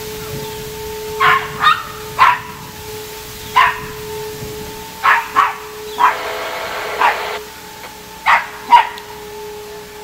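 A small dog yapping in short sharp barks, about eight of them, with a longer drawn-out bark about six seconds in. Behind it runs the steady tone of a Sentry 16V2T-B outdoor warning siren sounding its weekly timed test.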